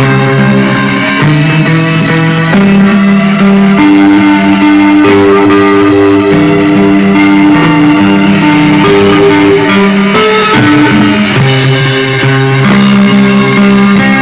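Live rock band playing loud, with sustained distorted electric guitar notes that shift pitch every second or two over a drum kit.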